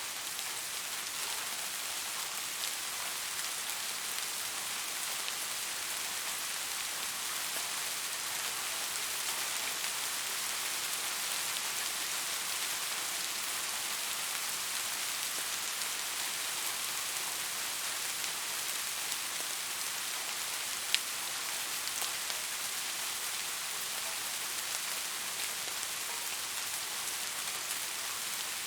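Soft, steady rain: a constant hiss of many small raindrops pattering, with one sharper, louder drop about two-thirds of the way through.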